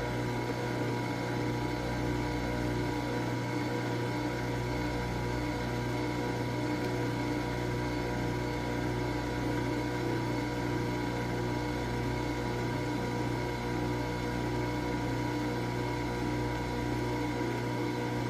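Nespresso Vertuo Pop+ coffee machine running a brew cycle, a steady mechanical hum with a constant whine and no change in pitch.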